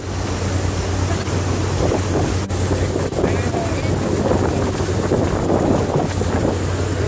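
Tender boat under way: its engine runs with a steady low hum beneath the rush of water along the hull and wind buffeting the microphone. A single sharp click about two and a half seconds in.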